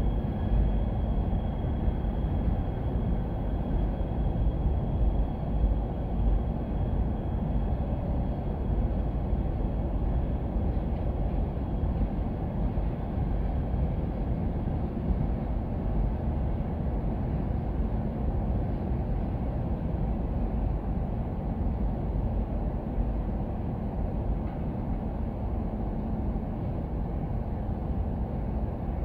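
Freight train rolling past: a steady low rumble of the cars on the rails, with no horn. A faint high whine fades out over the first dozen seconds.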